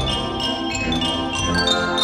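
Xylophone solo played in quick runs of struck notes with two mallets, over a concert band holding sustained chords underneath.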